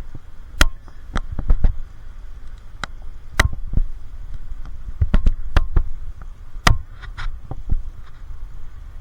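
Hand tools clinking and knocking on metal while a new suspension part is fitted to a car: about a dozen irregular sharp strikes over a steady low rumble.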